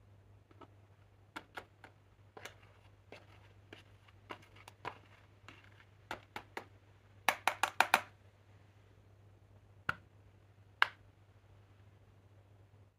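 Light taps and sharp clicks from handling a metal, phone-shaped makeup palette case, with a quick run of louder clicks about seven seconds in and two single clicks near the end. A faint steady low hum runs underneath.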